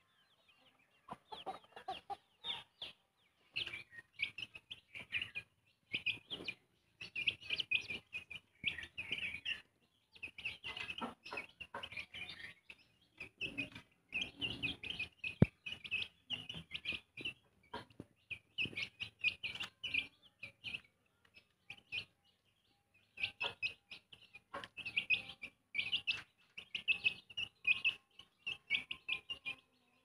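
Young chickens peeping and clucking in runs of many short, high calls, with a pause of a couple of seconds about two-thirds of the way through. A single sharp click comes about halfway.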